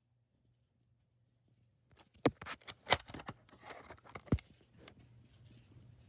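About two seconds of near silence, then irregular sharp clicks and light knocks as a smoke alarm is handled.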